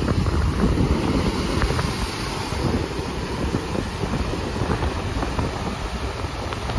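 Sea waves breaking and washing up the beach, with strong wind buffeting the microphone and making a steady low rumble.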